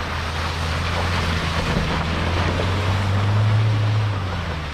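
Mahindra Thar SUV driving through a shallow muddy water crossing: its engine runs steadily and grows louder about three seconds in, over the splash and rush of water thrown up by its tyres.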